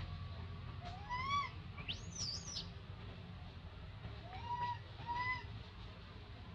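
Short arched animal calls with overtones: a rising call about a second in, a higher sliding, double-peaked squeal about two seconds in, and a pair of calls near the end.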